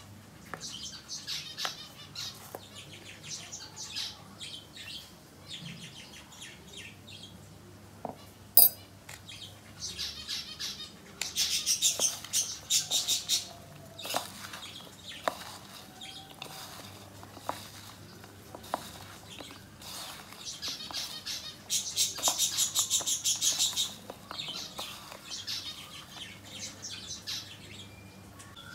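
Hands tossing and mixing sliced ivy gourd in dry flour in a bowl: a rapid, dry rustling that comes in spells, loudest in two stretches of a few seconds each, one near the middle and one later. A single sharp knock comes about a third of the way in.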